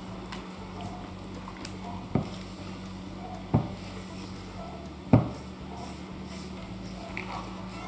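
Wooden spoon stirring a stiff flour, milk and egg bread dough in a stainless steel mixing bowl: a faint scraping, with three dull knocks about a second and a half apart as the spoon and bowl bump.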